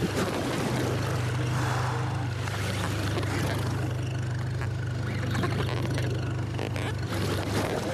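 Boat engine running steadily with a low, even hum over a constant hiss.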